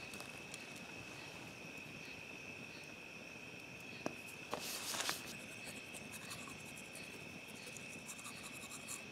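Faint, steady high trilling of night insects, with a click and a short crunching scrape about four seconds in as charcoal is crushed with a toothbrush on a log, and faint toothbrush scrubbing near the end.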